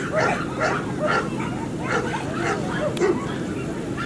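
Dogs barking and yapping in short repeated bursts, about two a second, over people talking nearby, with a single sharp click about three seconds in.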